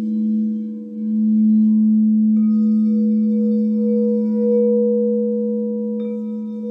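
Crystal singing bowls ringing together in long sustained tones, swelling louder about a second in. A higher bowl sounds about two and a half seconds in and another near the end, adding new ringing notes over the low ones.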